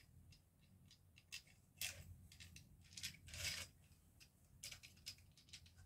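Faint clicks and brief scrapes of curtain hooks being fitted onto a curtain rail, with the curtain fabric brushing, in a handful of short separate sounds.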